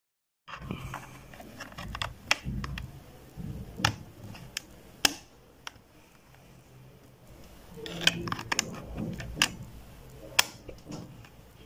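Sharp plastic clicks and fingertip handling noise as a CR2032 coin-cell battery is pressed into the battery holder of a digital bathroom scale and the plastic battery cover is snapped shut.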